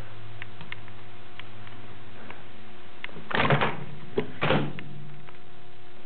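Microwave oven keypad buttons being pressed, faint clicks over a steady low hum, with two louder bumps about three and a half and four and a half seconds in.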